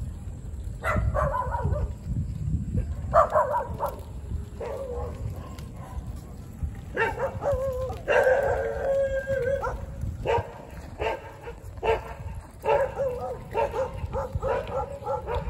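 A dog barking and yipping in repeated short calls, with one longer drawn-out call about eight seconds in, over a steady low rumble.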